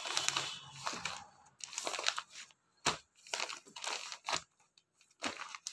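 Clear plastic packaging crinkling and rustling in irregular bursts as wrapped clothing packs are handled, with one sharper crackle about three seconds in.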